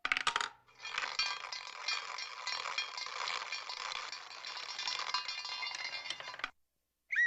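Dense metallic clinking and jingling, like a cartoon sound effect of coins or tableware rattling. A short burst comes at the start, then a steady run of small clinks for about five seconds that cuts off suddenly.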